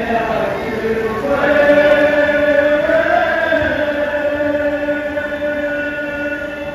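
Voices chanting a noha, a Shia mourning lament, in long held notes that rise slightly and fall back about three seconds in.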